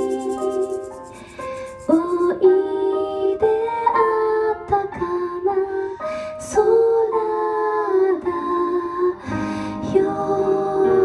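Live female vocals singing a melody in long held notes over electronic keyboard accompaniment, with a short lull about a second in.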